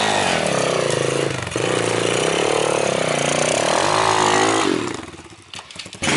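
A 110cc Apollo pit bike's single-cylinder four-stroke engine revving as it is ridden, its pitch falling, holding, then climbing again with the throttle. It drops away sharply just before five seconds in.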